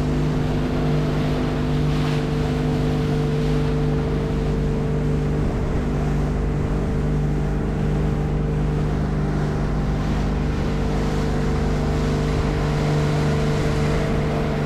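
An engine running at a steady speed, a constant drone with wind noise on the microphone.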